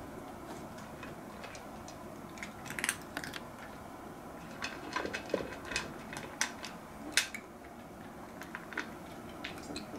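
A cat crunching food from a ceramic bowl: irregular small crunches and clicks, with clinks against the bowl, a few louder ones about three seconds in and again around the middle.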